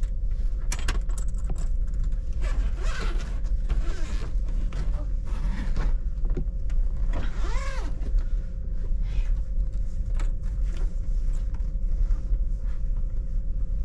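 Inside a passenger train carriage: a steady low rumble and hum, with scattered small clicks and knocks.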